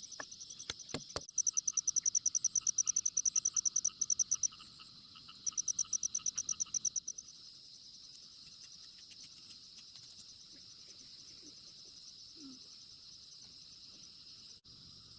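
Insects calling in the forest: one loud insect gives a rapid pulsed high chirping in two bouts, the second shorter and stopping about seven seconds in, over a steady high chorus of other insects.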